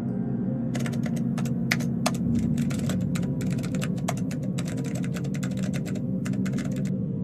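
Rapid, irregular typing on a computer keyboard, many keystrokes a second, starting about a second in and stopping shortly before the end, over a steady low drone.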